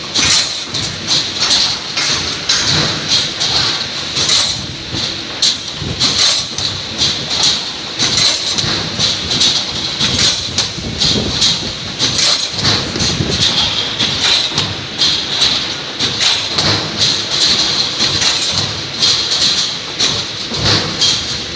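Automatic high-speed wire mesh welding machine running, welding 3–6.5 mm steel wire into mesh: a rapid, uneven run of metallic clanks and knocks from the welding heads and wire feed cycling, over a steady high hiss.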